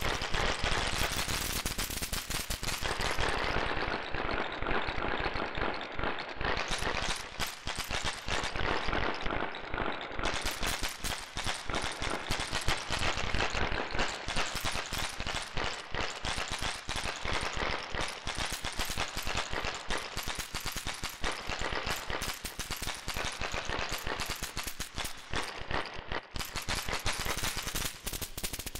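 A dense, unbroken rattle of rapid sharp cracks and clicks, duller for several seconds after the start.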